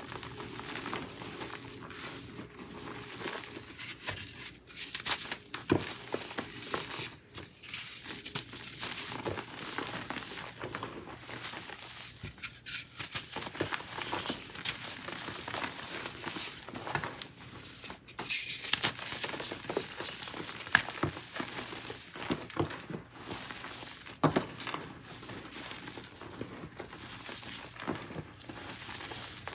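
Hands crushing and crumbling reformed gym-chalk blocks into loose powder: a steady crunching and crackling, with a few sharper snaps as pieces break.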